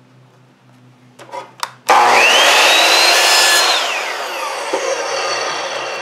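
Electric miter saw switched on about two seconds in, its motor whining up in pitch as the blade cuts through a wooden strip. The trigger is let go and the blade coasts down, fading away.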